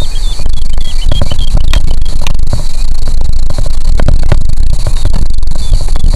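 Wind buffeting the microphone, with a heavy low rumble and crackles. Under it is a steady high insect trill, and a few faint bird chirps come in the first second.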